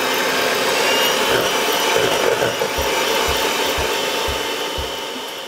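Electric hand mixer running steadily, its twin beaters whipping cold cream into chantilly in a stainless steel bowl. It gets slightly quieter near the end.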